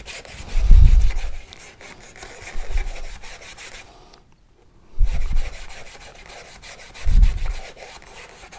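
Paintbrush scrubbing and scraping acrylic paint around the mixing well of a plastic palette tray, in several bouts, with a few dull low thumps.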